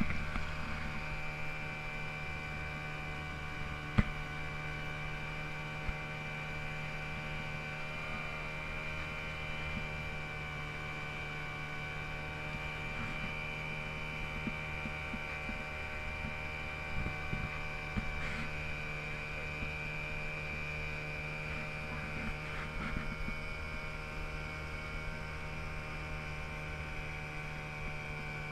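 A steady hum made of several steady tones, with a single sharp click about four seconds in and a few faint knocks later.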